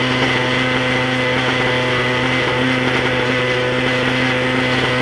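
Radio-controlled model helicopter's fuel engine running at a steady pitch.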